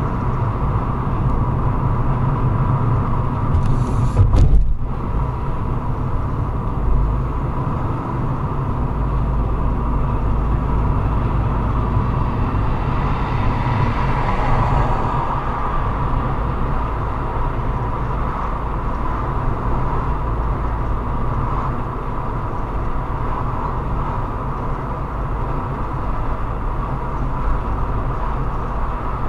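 Steady road and engine noise inside a moving car, as picked up by a windshield dashcam, with a brief thump about four and a half seconds in.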